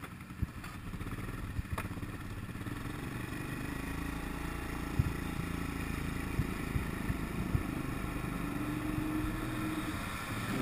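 Quad bike engine running as the ATV rolls slowly, its pitch rising a little near the end, with a few knocks and clatters, the sharpest about five seconds in.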